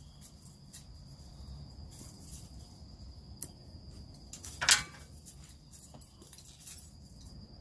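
Soft puffs, small lip clicks and smacks of a man drawing on a freshly lit corncob pipe, with one short, louder breathy puff about four and a half seconds in. A steady high-pitched insect chirring runs underneath.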